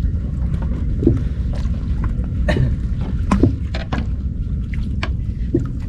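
Steady low rumble aboard a fishing boat at sea, with scattered short clicks and knocks.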